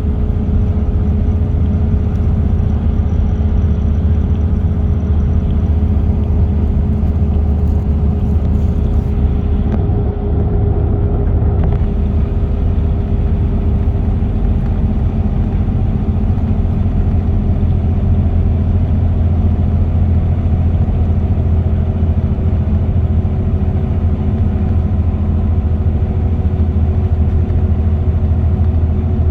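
Car cruising on an expressway: steady low tyre and engine rumble with a faint steady hum.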